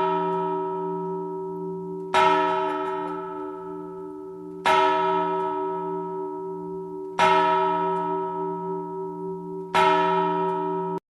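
A large bell tolling: five slow, evenly spaced strikes about two and a half seconds apart, each ringing on and fading until the next, cut off abruptly near the end.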